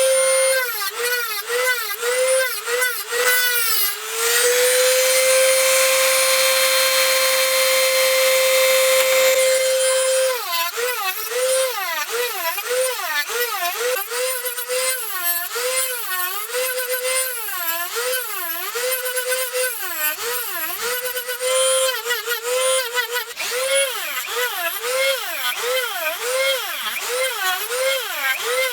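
Electric motor of a small lathe or similar power tool running, its pitch dipping and recovering over and over, about twice a second, as the work loads it. For a stretch of about six seconds starting some four seconds in, it runs at a steady, unloaded pitch.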